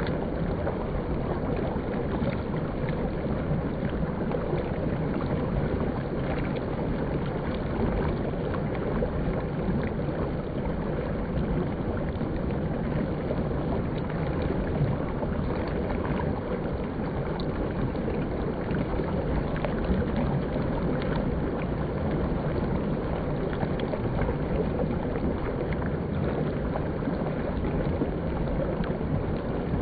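River water flowing, a steady rushing wash with small splashes and ticks scattered through it.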